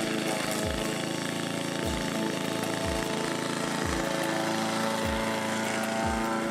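Homemade remote-control mower's 173cc single-cylinder gas engine running steadily as the mower cuts grass. Background music plays over it, with a deep kick drum about once a second.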